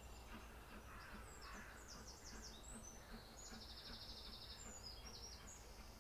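Songbirds singing in spring, with many short high chirps and trills, a quick rattling trill in the middle, over a faint steady low rumble.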